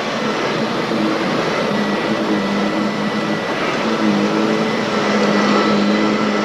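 Steady, loud mechanical whirring noise with a low hum running under it.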